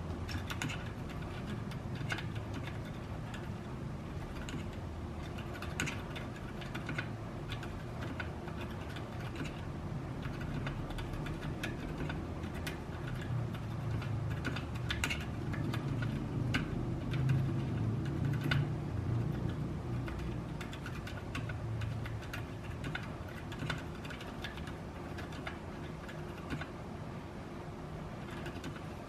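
Typing on a 60% mechanical keyboard with Gateron Red Silent linear switches, a carbon fibre plate and an aluminium case: a continuous run of soft, muted keystroke clicks.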